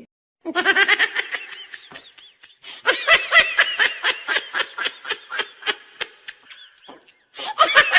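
High-pitched laughter in quick repeated pulses, starting about half a second in, with a brief pause near the end before a second burst.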